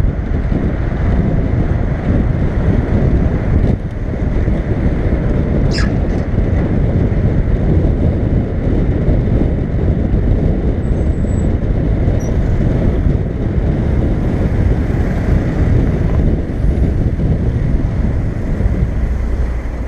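Steady wind rush and road noise on a roof-mounted action camera as a car drives along a wet city road, with a brief thin high sound about six seconds in.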